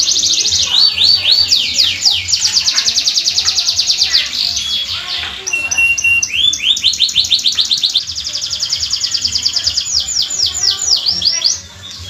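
Canary singing a long, continuous song of rapid rolling trills, each a quick run of repeated falling notes. About halfway through comes a short steady whistle. The song breaks off just before the end.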